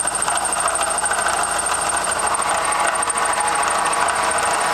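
A CNC knee mill's spindle running as an end mill cuts a round bore in a metal torque plate. It is a steady machining noise with a thin, high, constant whine above it.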